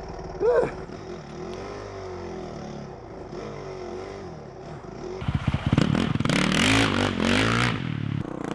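A Honda CRF450R's single-cylinder four-stroke engine idling. About five seconds in, a dirt bike engine revs hard and loud, with clattering and scraping mixed in.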